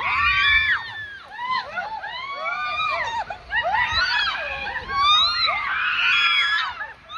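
Several people screaming together with high, overlapping, rising-and-falling cries: thrill screams of riders on a raft going down an enclosed water slide.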